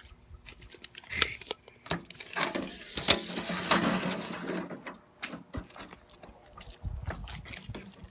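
A steel tape measure's blade is pulled out with a rapid rattling whirr lasting about three seconds. A few scattered clicks and taps come before it and after it.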